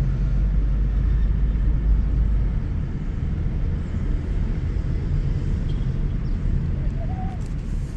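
Low, steady rumble of a car being driven: engine and road noise, easing slightly after about two and a half seconds.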